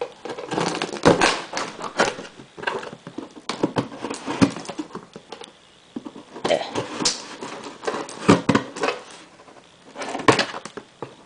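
A knife blade slicing through clear packing tape along the seam of a cardboard box, with irregular scraping and tapping as the blade and hands work over the cardboard.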